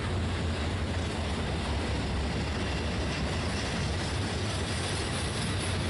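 Norfolk Southern freight train of open-top hopper cars rolling past, a steady low rumble of wheels on rail with no horn.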